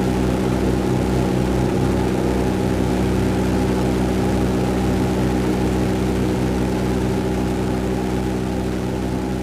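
A steady mechanical hum made of several steady tones over a low, pulsing throb, unchanging throughout.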